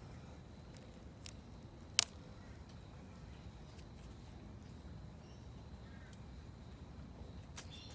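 A damaged succulent leaf snapping off its stem with one sharp, crisp click about two seconds in, a fainter click just before it. A few faint clicks follow near the end.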